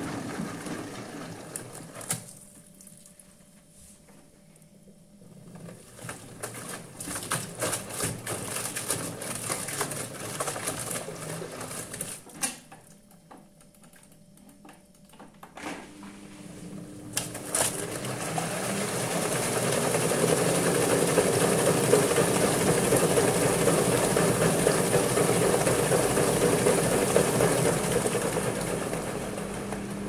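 LG front-load washing machine running with its door open: the drum tumbles wet towels in short turns with clattering and knocks, stopping twice. About 17 seconds in, the motor spins the drum up into a steady fast spin with a whirring hum.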